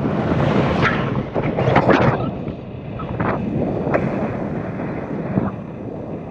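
Wind buffeting the camera's microphone during a tandem paraglider flight: a loud, rough rush that swells in several gusts and eases off for a moment about two and a half seconds in.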